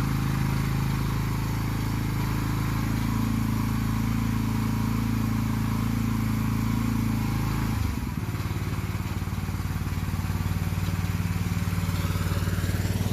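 Engine of the vehicle moving a shed, running steadily under load; about eight seconds in it drops to a lower, pulsing idle.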